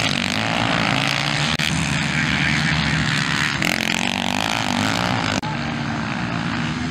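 Dirt bike engines running hard as motocross bikes ride round a dirt practice track, a steady loud engine sound that shifts in pitch as the riders work the throttle. There is a brief break about five and a half seconds in.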